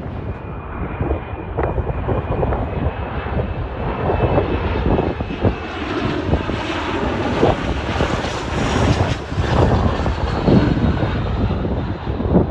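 Bombardier Challenger 300 business jet on landing approach, its twin turbofan engines running with a high whine over a low rumble, with wind gusting on the microphone.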